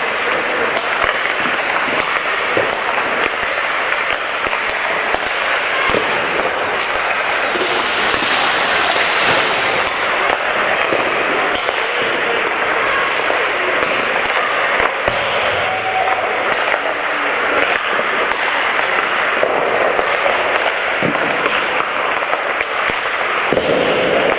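Ice hockey game ambience in a rink: a steady wash of arena noise with indistinct voices, broken by frequent sharp clacks of sticks and puck and knocks against the boards.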